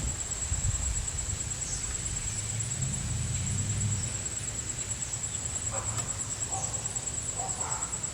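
A steady high-pitched insect trill, pulsing about three times a second, over a low outdoor rumble.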